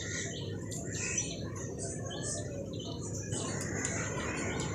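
Shredded potatoes sizzling steadily in hot oil in a frying pan. Small birds chirp repeatedly in the background.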